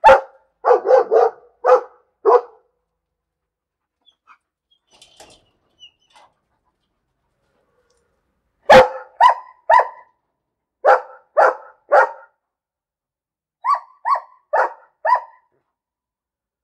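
A dog barking in three runs of quick barks separated by pauses: about five barks in the first two and a half seconds, then after a gap of about six seconds a run of six barks, and a last run of four slightly quieter ones.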